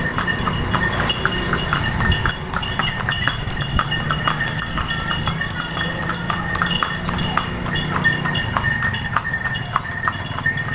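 A delman horse's hooves clip-clopping on the road as it pulls the cart, in an even rhythm of a few hoofbeats a second, heard from aboard the cart.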